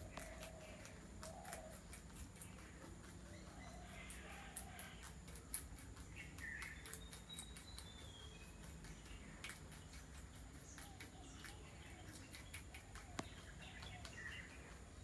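Faint background with birds chirping now and then, some way off, over light scattered ticks and a low steady hum. A sharper single tick comes about five and a half seconds in.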